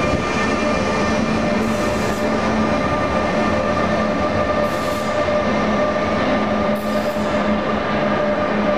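DB class 182 Siemens Taurus electric locomotive running, its traction equipment giving a steady whine of several pitches over a rumbling drone. Three short hisses come through, about 2, 5 and 7 seconds in.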